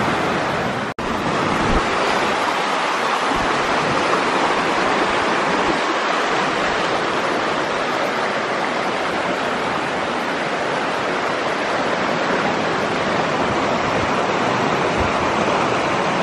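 Creek water rushing steadily, a loud, even water noise.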